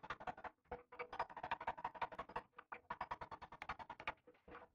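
Hammer striking a chisel into the catalytic converter core inside a Polaris RZR Turbo muffler: fast, faint metallic taps, several a second, over a steady ring. This is the drilled-out converter being broken up to clear it from the muffler.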